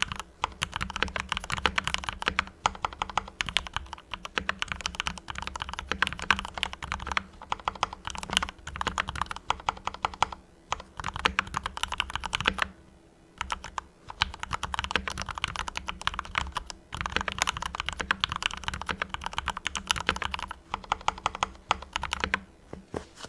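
Fast typing on a Mars Pro mechanical keyboard with fully lubed Cherry MX Red linear switches: dense runs of keystrokes a few seconds long, broken by brief pauses, the longest about halfway through.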